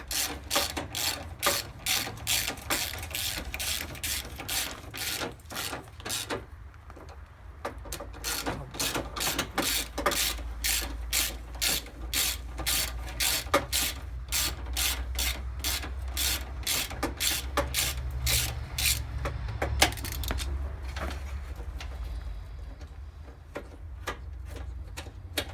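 A ratchet with a 10 mm socket clicking in quick, even strokes as a headlight mounting bolt is undone. The clicking comes in two long runs, broken by a short pause about six seconds in, and thins out after about twenty seconds, over a low rumble.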